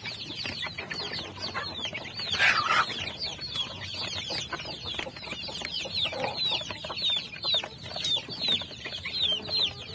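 Young chickens, about two weeks to a month old, peeping continuously in many short, falling chirps several times a second, with small sharp clicks of beaks pecking at a plastic feeder.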